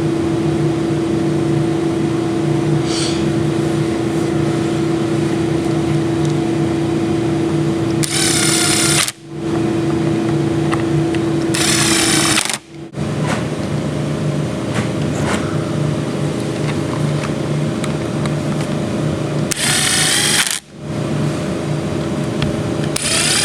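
Power driver spinning in short bursts of about a second each, four times, over a steady background hum.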